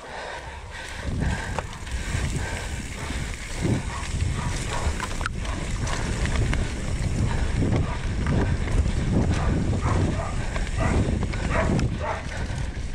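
Mountain bike rolling fast down a dirt downhill trail: tyres running over dirt and leaves and the bike knocking and rattling over bumps, over a steady low rumble of wind on the microphone.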